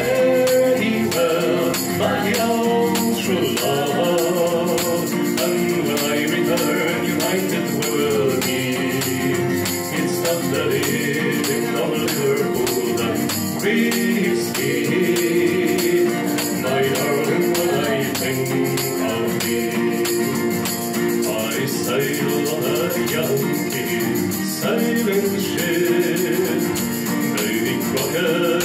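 Live acoustic folk song: singing over an acoustic guitar, with a shaken tambourine.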